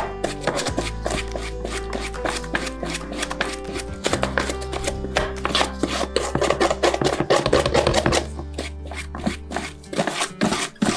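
Rapid, repeated scrubbing strokes, as of a brush working over a hard surface, over background music with held notes. The strokes thin out near the end.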